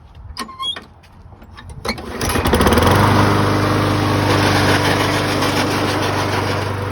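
2007 Toro Recycler self-propelled mower's engine, started after a few clicks, catching about two seconds in and running steadily, then winding down near the end. The self-propelled transmission is working under load with a noise the owner takes for the gears grinding.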